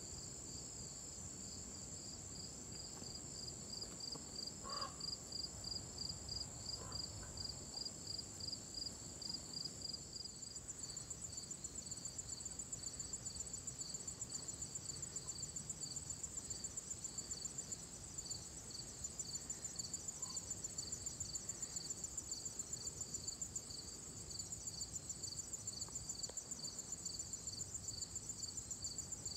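Insect chorus, such as crickets and katydids: a steady high trill with a second call pulsing quickly and regularly beneath it, carrying on throughout.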